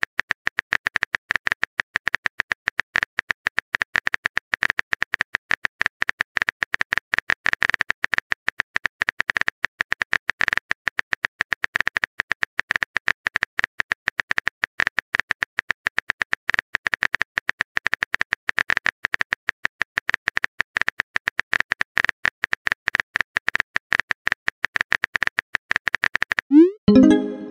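Rapid typing clicks, a keyboard typing sound effect, running continuously and stopping about 26 seconds in. Near the end, a short rising message-sent tone.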